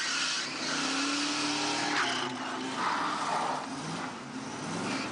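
Ford 351 Cleveland V8 in a 1972 Gran Torino revving up and down as the car spins its rear tyres doing donuts in snow, with a hissing rush over the engine note.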